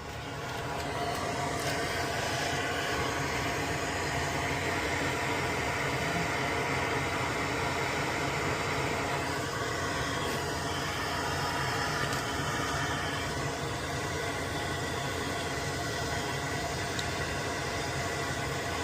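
Small electric blower starting up and running steadily with an even whirring hiss and hum, used while desoldering a relay from a circuit board.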